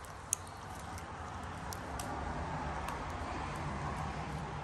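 Homemade glitter slime being squeezed and stretched by hand, with a few faint clicking pops and one sharp click just after the start, over a steady low background hum.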